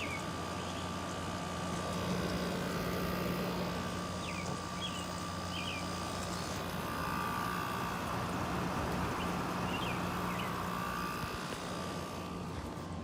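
LG LW8016ER 8,000 BTU window air conditioner running steadily: a low compressor and motor hum under the rushing of its fan, with a steady whine from the fan.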